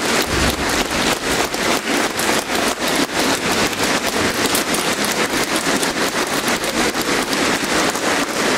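Large audience applauding, the clapping falling into a steady unison rhythm of about three to four claps a second.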